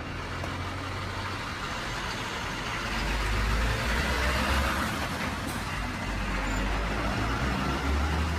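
Truck engine sound from an RC semi-truck hauling a lowboy trailer: a steady low diesel-style rumble with hiss above it, getting louder about three seconds in.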